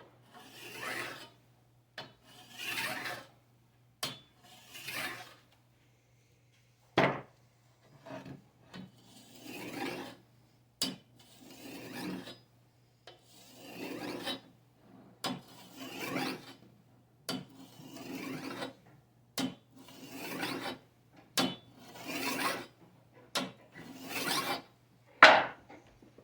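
A knife being sharpened: the blade drawn across a sharpener in about twenty short strokes, roughly one a second, with a brief pause about a quarter of the way in. A few strokes carry a sharp click.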